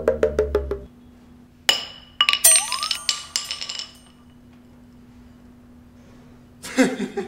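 Comedy soundtrack: a music cue with quick rhythmic hits stops about a second in, followed by a burst of clinking, glassy sound effects with a short rising whistle. A faint steady hum follows, and the music starts again near the end.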